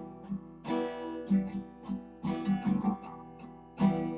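Acoustic guitar strummed in a slow pattern, each chord left to ring and fade before the next stroke.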